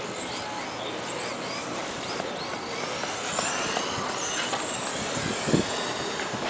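Radio-controlled race cars' motors whining high, the pitch rising and falling over and over as the cars accelerate and brake around the track. A short knock comes about five and a half seconds in.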